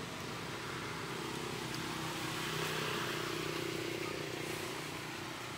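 A motor engine humming steadily, swelling toward the middle and fading near the end, as of a vehicle going by, over steady outdoor noise.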